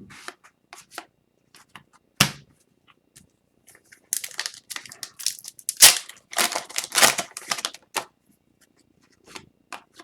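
Hockey card pack wrapper being crinkled and torn open, with scattered clicks and a sharp tap about two seconds in; the crackling is densest in the middle of the stretch.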